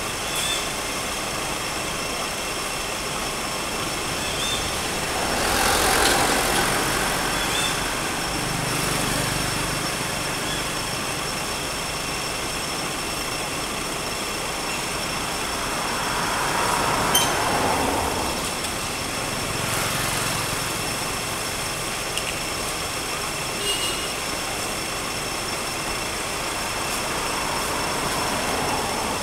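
Road traffic: a steady outdoor rumble with several vehicles swelling past and fading, a few seconds apart, and a couple of short clicks.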